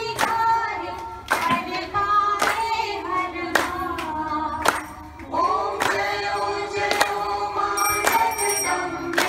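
A group of adults and children singing a devotional song together and clapping in time, about one clap a second. A high ringing tone joins near the end.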